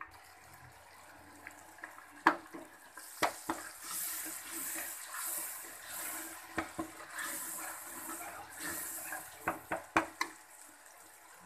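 Masala frying in oil in a steel pot, sizzling while a metal spoon stirs it. The spoon knocks and scrapes against the pot several times, with a quick run of clinks near the end.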